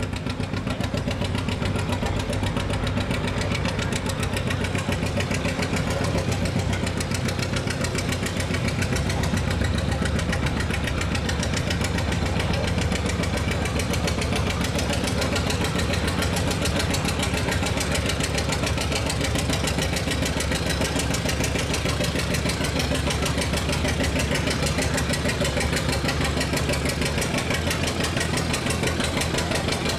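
Farm tractor engine running steadily while pulling a weight-transfer sled, with a low drone that strengthens about a third of the way in and eases off near the end.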